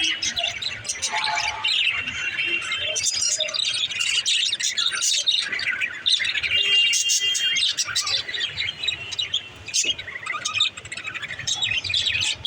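Pet budgerigars chirping and warbling in a continuous chatter of quick chirps and brief whistled notes.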